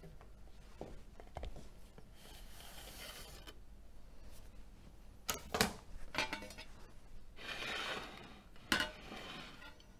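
Kitchenware handled on a stainless steel worktop. A soft scrape comes as the cake slides off the plastic cake lifter onto a ceramic plate, followed by a few sharp clacks around the middle. Near the end there is a longer scrape as the plate is pushed along the counter, then one more clack.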